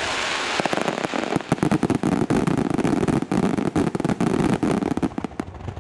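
Aerial fireworks going off in a rapid barrage: a dense run of crackling pops and bangs that thins out near the end.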